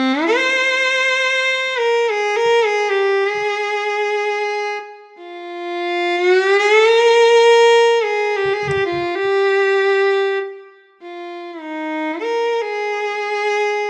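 SWAM Solo Strings v3 viola, a physically modelled software instrument, playing a slow legato melody with vibrato. Notes slide up into pitch at the start and again about six seconds in, and the melody falls into three phrases with short breaks between them.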